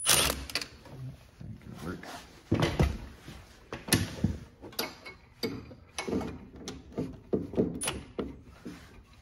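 Irregular metal knocks and clicks, about one or two a second, from a socket extension and cordless driver being handled against an ATV's engine side cover while its cover bolts are taken out.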